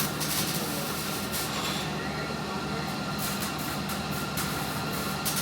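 Steady low machine hum in a welding shop, with faint scattered crackles.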